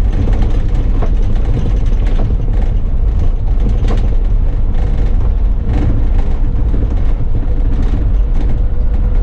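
A moving bus, heard from on board: a steady, heavy low rumble of engine and road noise, with scattered short knocks and rattles from the bus body.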